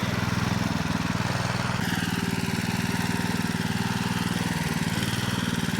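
Walk-behind tractor engine running steadily under load as it tows a trailer full of sand and gravel, with a slight change in its note about two seconds in.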